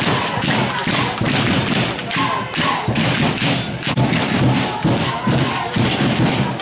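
Repeated thumps over a steady wash of noise, with voices faint in the background.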